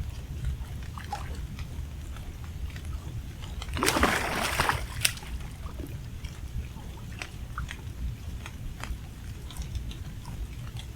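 A hooked blue catfish splashing and thrashing at the water's surface, one loud burst of about a second around four seconds in, followed by a sharp click. Scattered small ticks run over a steady low rumble.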